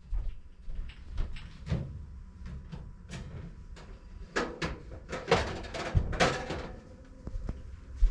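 Kitchen handling sounds: a string of knocks and clicks, with a few louder scraping rushes around the middle, as dishes and cookware are handled.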